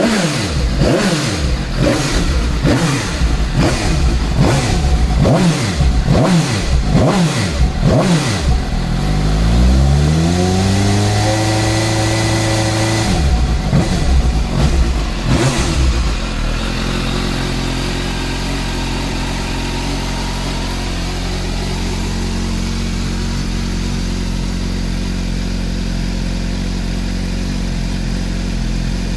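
Suzuki GSX-S750's inline-four engine being revved: a quick series of short throttle blips, one long rev held high for a couple of seconds, a few more blips, then settling to a steady idle about halfway through.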